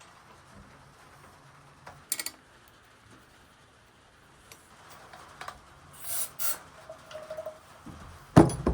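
Hand-tool and handlebar work on a mini dirt bike: a couple of sharp metal clicks, short scraping hisses and a brief squeak, then a loud clunk near the end.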